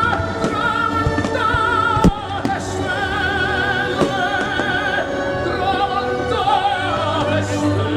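Operatic singing: a voice holding long notes with wide vibrato over instrumental accompaniment, with a short click about two seconds in.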